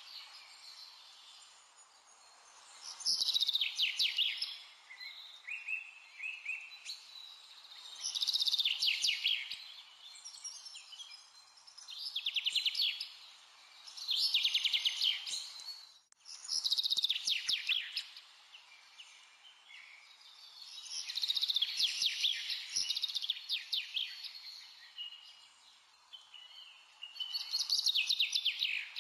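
Baking paper crinkling as it is unrolled and peeled off a thin layer of set white chocolate, which cracks into shards: repeated bursts of crackling, each a second or two long, every few seconds.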